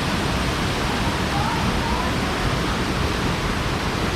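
Waterfall pouring: a loud, steady rush of falling water, with faint voices briefly heard behind it.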